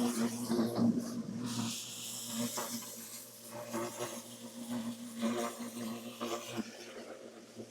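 Giraffe Tools portable electric pressure washer running: the pump motor hums steadily while the wand sprays water, the spray hiss rising for about two seconds from a second and a half in.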